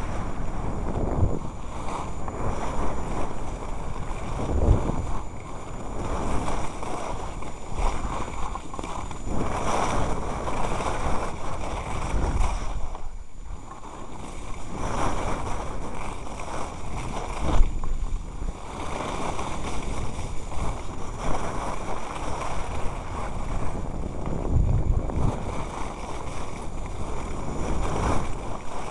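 Wind rushing over the microphone of a camera carried down a ski slope, mixed with the hiss of sliding over snow. It swells and eases every few seconds and drops away briefly about halfway through.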